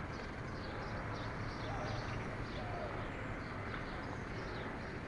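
Birds chirping: many short high chirps over a steady low background hum of outdoor noise.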